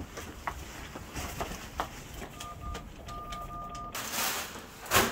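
Footsteps and light knocks, then an electronic beep from a building's door or elevator panel: a short beep, a brief gap, and a longer steady tone. A burst of hiss follows and a sharp knock near the end.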